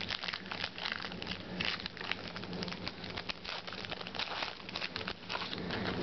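Trading cards being shuffled and flicked through by hand, a fast, irregular run of small clicks and rustles as the cards slide against each other.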